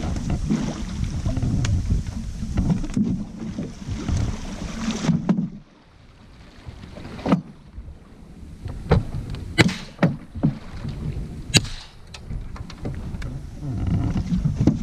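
Water churning and splashing as a hooked alligator thrashes beside the boat. The churning stops suddenly about five seconds in, followed by several sharp knocks and splashes.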